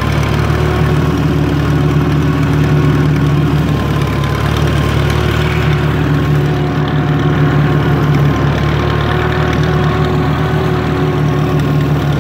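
1940 Allis-Chalmers B tractor's engine running steadily and loudly as the tractor drives across the grass.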